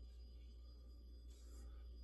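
Near silence: room tone with a steady low hum and a brief faint hiss about halfway through.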